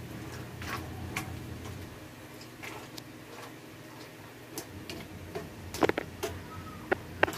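Clam shells clicking and clacking against each other and the pan as a hand moves ingredients among them, scattered clicks with a cluster of louder ones about six seconds in. A low hum underneath drops away about two seconds in.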